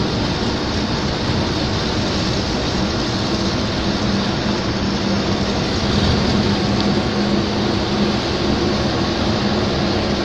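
Steady engine drone and road noise inside a moving vehicle's cabin, with a low hum that grows a little louder about six seconds in.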